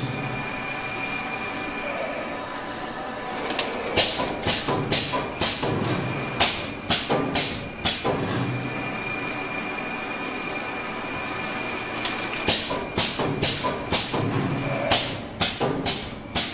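PLYG-650-A HEPA glass-fibre pleating machine running: runs of sharp clacks about two a second as it folds the media, alternating with spells of steady hiss and a thin high whine.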